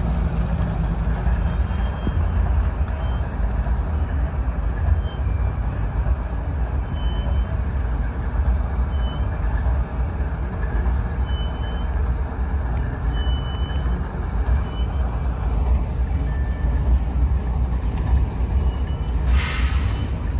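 Union Pacific diesel locomotives, a GE C45AH with EMD SD70ACE units behind it, running with a deep steady rumble. Faint brief high tones come and go, and a short hiss is heard near the end.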